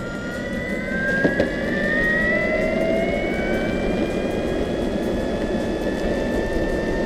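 Electric skateboard's brushless motor whining and rising steadily in pitch as the board accelerates under full throttle, over the rumble of the wheels on the road and wind. Two sharp clicks a little over a second in.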